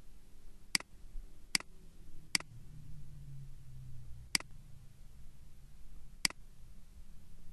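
Computer mouse button clicking five times at uneven intervals: three clicks close together, then two more spaced further apart.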